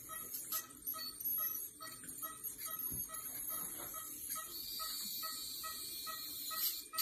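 Ultrasonic dental scaler working on a dog's teeth: a steady high-pitched hiss, with a second, lower hiss tone joining about two-thirds of the way in. Under it, a regular soft tick or beep repeats about four times a second.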